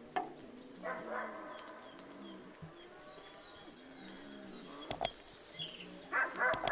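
Background music with two quick double clicks from a subscribe-button sound effect, about five seconds in and again near the end.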